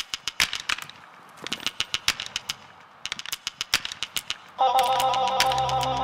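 Hot hand-blown glass crackling: three quick runs of sharp cracks with short gaps between, the sign of the glass surface cracking as it is cooled for the ice-glass effect. Music with steady tones comes in about two-thirds of the way through.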